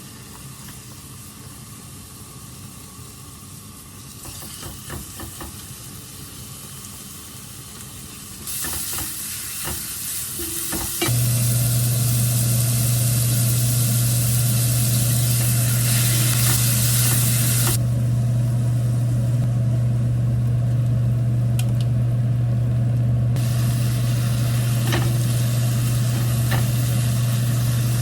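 Food sizzling and being stirred in a frying pan. About eleven seconds in, a loud steady low hum starts and runs on under the sizzle.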